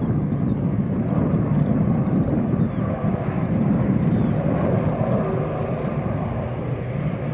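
Fixed-wing aircraft flying at an air show: a steady low engine rumble.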